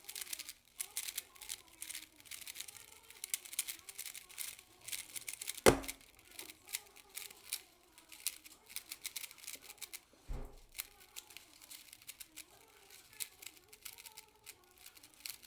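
Rapid clicking of Rubik's Cubes being turned fast in a speed solve, with two sharp knocks, one about six seconds in and one about ten seconds in. Faint voices underneath.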